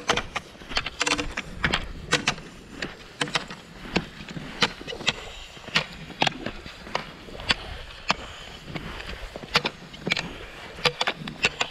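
Cross-country skiing on thin, trampled snow: ski poles planting and skis striking and sliding, giving sharp irregular clicks about two or three a second over a steady scraping hiss.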